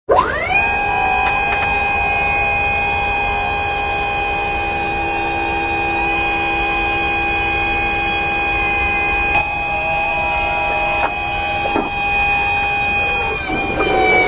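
Machinery sound effect: a steady, many-toned mechanical whine that glides up in pitch as it starts, holds for about thirteen seconds, then winds down in pitch near the end.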